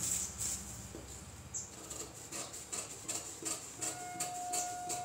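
Scissors snipping through a paper pattern in a run of short, crisp cuts, about three a second, with the paper rustling as it is handled.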